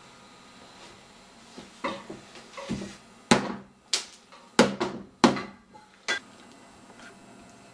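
A hammer striking an iPod lying on a padded chair seat: about eight separate blows over some four seconds, the middle ones the loudest.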